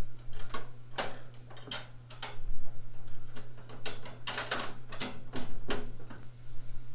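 A run of about a dozen sharp, irregular clicks and taps from metal parts being handled while the handle is bolted onto a steel roller tool cart, over a steady low hum.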